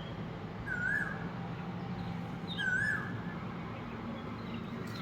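Asian koel calling: two short calls about two seconds apart, each a note that rises then drops, over a steady low hum.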